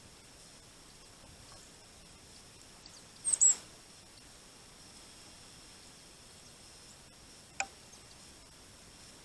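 Small birds at a winter feeder: a short, very high-pitched call about three seconds in, then a single sharp tap, such as a peck or a landing on the feeder, a few seconds later.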